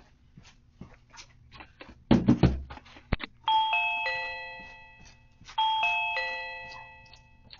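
Video doorbell chime sounding a three-note electronic ding-dong twice, each round fading out over about two seconds. A burst of knocks and a sharp click come just before the first ring.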